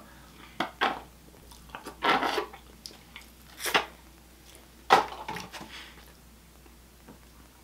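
A person trying to drink a thick milkshake, making several short slurping and sipping mouth sounds over the first five seconds or so; the loudest comes about five seconds in.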